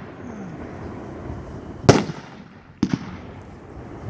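500-gram firework cake ('Sexy Rider', World Class) firing: a loud bang about two seconds in, then a quick double pop about a second later, over a steady hiss.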